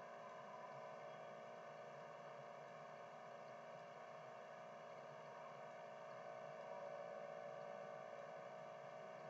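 Near silence: faint steady room tone, a low hiss and hum with no distinct events.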